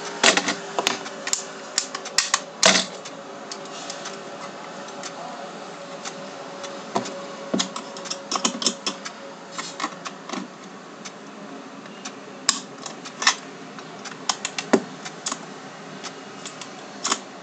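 Hard plastic pistol parts handled and fitted together by hand: irregular clicks and taps as pieces knock and snap against each other.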